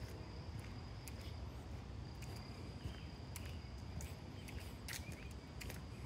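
Woodland insects giving a steady high-pitched drone, with scattered short clicks and a few brief chirps over a low rumble.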